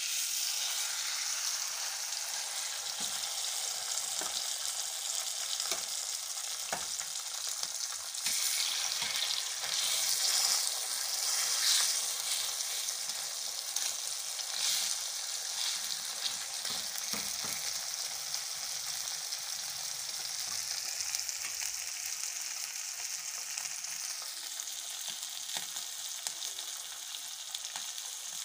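Masala-coated needlefish frying in hot oil in a pan: a steady sizzle that starts abruptly as the fish go in, with scattered pops and spatters.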